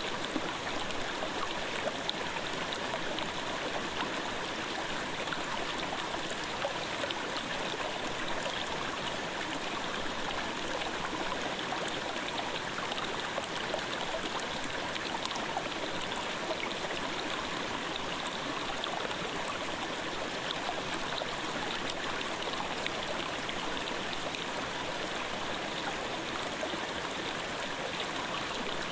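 Clear gorge stream babbling steadily: an even rush of flowing water with small splashes now and then.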